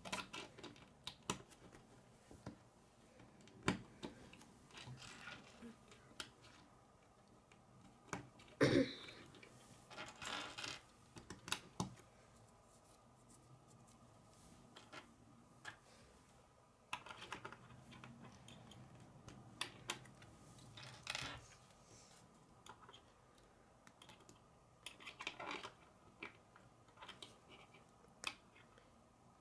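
Plastic K'nex rods and connectors clicking and snapping together by hand, with small pieces tapping on a wooden tabletop: scattered, irregular clicks, louder for a few seconds about nine seconds in.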